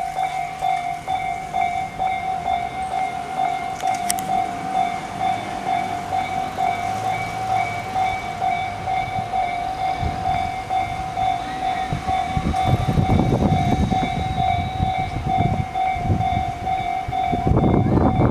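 Electronic railway level-crossing warning alarm, Tobu Railway's 'Tojo Line type' tone, ringing in a steady, rapid, even repeat. About twelve seconds in, a train starts rumbling over the rails, growing louder near the end.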